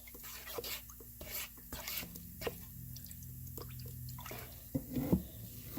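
Paint mixed with metal flakes being handled in a spray gun's paint cup: irregular small clicks and drips, a little louder about five seconds in, over a faint steady hum.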